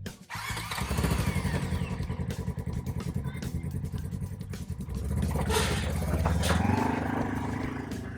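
Polaris RZR side-by-side's engine running with a fast, even pulsing. The revs rise briefly near the end as the machine is driven.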